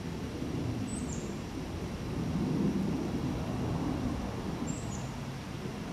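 Low rumbling outdoor background noise, a little louder after about two seconds, with two brief high bird chirps, one about a second in and one near the end.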